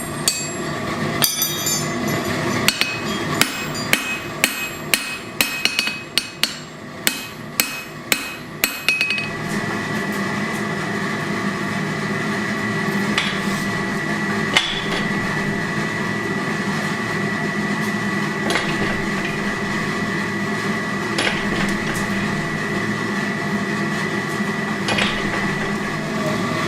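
Hammer blows on hot steel at the anvil while forging blacksmith tongs, a regular strike about every half second or so. After about nine seconds the hammering stops and a steady machine sound with a high whine carries on.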